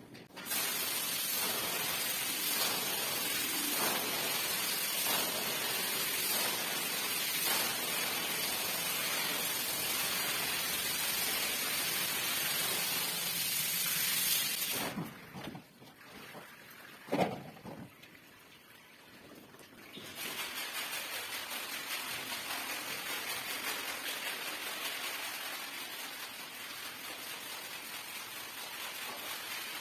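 Water from a hose spraying hard onto a soaked rug and the tiled floor around it, a steady rushing hiss. The spray breaks off partway through, a single knock sounds, and the spraying then starts again.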